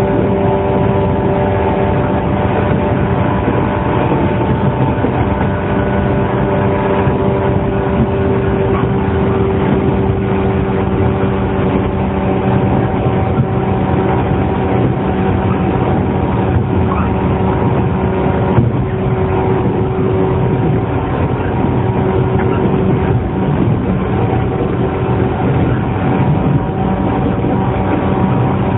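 JR 115 series electric train's motor car running at steady speed: a steady hum of traction motors and gears made of several level tones, over the rumble of wheels on the rails.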